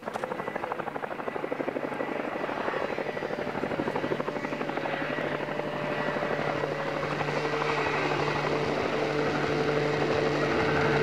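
Boeing CH-47 Chinook tandem-rotor helicopter approaching low: rapid rotor blade chop over a steady engine whine, growing louder as it nears.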